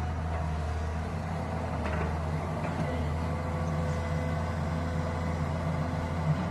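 Diesel engine of a heavy construction machine such as an excavator or backhoe loader, running steadily, with a faint click or knock about two seconds in and again near the end.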